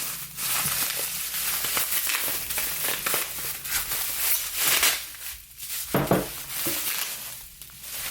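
Packaging crinkling and rustling as a candle is handled and unwrapped, with a brief sharper knock about six seconds in.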